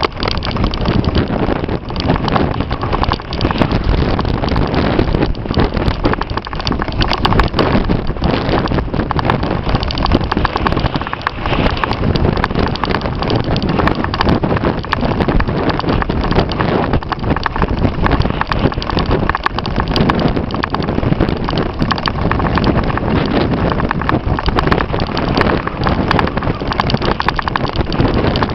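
Strong wind buffeting the microphone in loud, irregular gusts and thumps.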